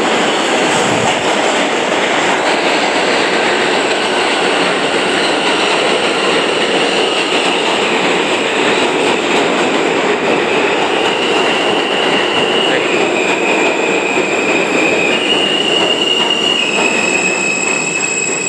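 A stainless-steel New York City subway train running into the station alongside the platform, a loud, steady rumble of wheels on rail. High-pitched squealing comes in about halfway through and steps up and down in pitch toward the end.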